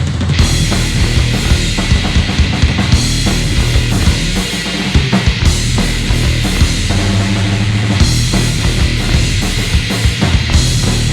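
Live rock band playing an instrumental passage: distorted electric guitar, bass guitar and a drum kit hit hard, with many quick drum hits.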